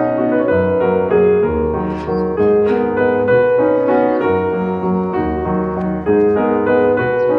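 Background piano music: a steady melody of sustained notes over a low bass line.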